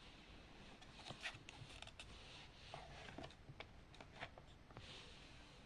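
Near silence: room tone with faint scattered small clicks and rustles.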